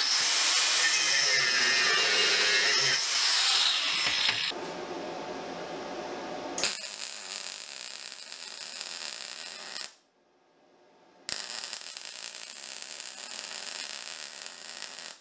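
MIG welding arc sizzling as twisted rebar is tack-welded to a steel flat-bar upright, in two steady runs broken by a pause of about a second around two-thirds of the way through. The first few seconds hold a louder, harsher noise that ends in a falling whine.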